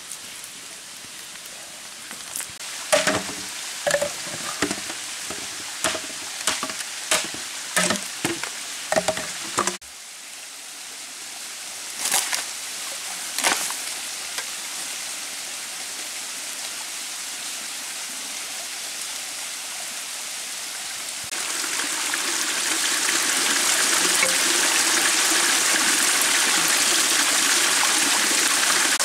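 Wet slaps and squelches of hands packing mud onto a hand-built clay stove, about a dozen in the first third. Then a steady hiss with two knocks, and from about two-thirds of the way through, the louder, steady rush of water running down a rock face in a small forest waterfall.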